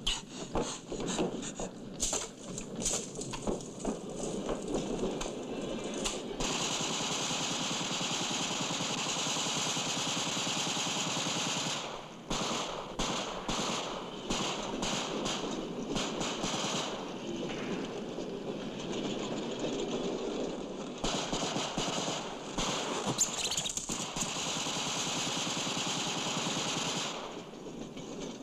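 War-film soundtrack of a gunfight: repeated bursts of machine-gun fire, broken by stretches of steady noise without shots.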